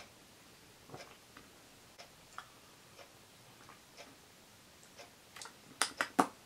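Faint, regular ticking like a clock, about one tick a second, with a few sharper clicks close together near the end.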